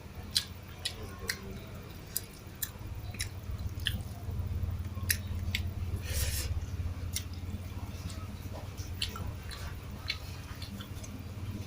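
A person eating rice with sardines close to the microphone: chewing, with sharp, irregular mouth clicks and smacks scattered throughout.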